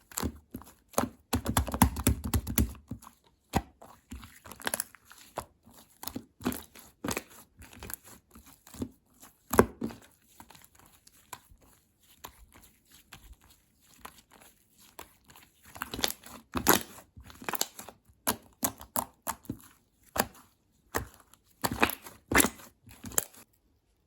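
Slime being played with by hand: irregular sticky crackles and pops as it is squished and pulled, with a dense run of crackling a couple of seconds in, stopping abruptly near the end.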